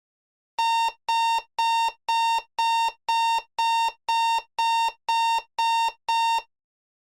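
Vehicle reversing alarm (backup beeper) sounding a steady high-pitched beep about twice a second, twelve beeps in all, then stopping.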